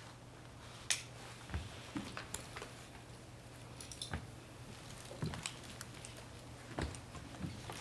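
Scattered clicks, knocks and rustles of people handling rifles, helmets and vest webbing, the sharpest click about a second in, over a low steady hum.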